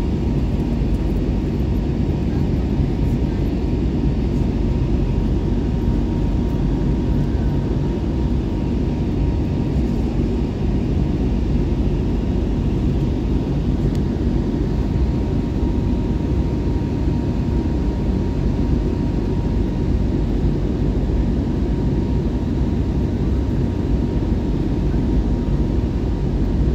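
Airliner cabin noise in flight: a steady low roar of engines and rushing air, with a thin steady tone above it.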